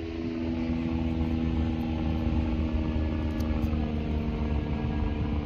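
Steady engine drone: one pitched hum with even overtones that drift slightly in pitch around the middle, over a constant low rumble.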